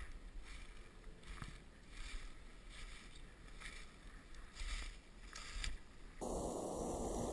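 Footsteps swishing and crunching through frosty dry grass, in irregular brushes about once a second. About six seconds in they give way to a steadier, louder hiss.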